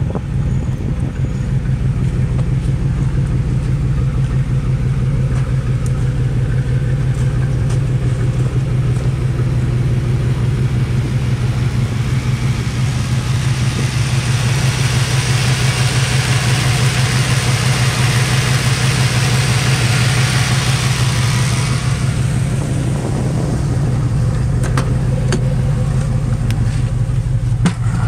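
2000 Chevy K2500 service truck's engine idling steadily. A higher hiss swells over it for several seconds in the middle and drops away, and a few light clicks come near the end.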